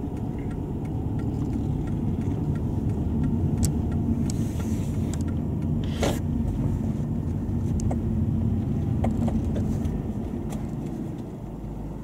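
Car driving slowly, heard from inside the cabin: a steady low engine and road rumble with a few light clicks and rattles, one sharper click about halfway. The sound eases off and fades near the end.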